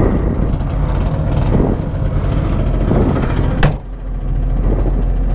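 Piaggio Ape 50's small two-stroke single-cylinder engine idling steadily just after a choke start, heard from the cab. A single sharp knock sounds about three and a half seconds in.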